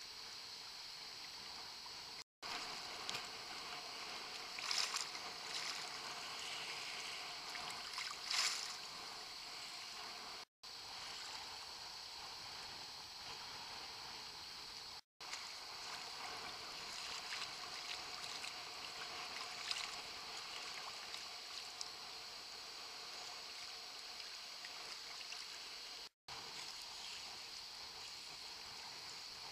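Choppy sea water sloshing and splashing close to the camera, a steady hiss with a few louder splashes about five and eight seconds in. The sound drops out briefly four times where clips are joined.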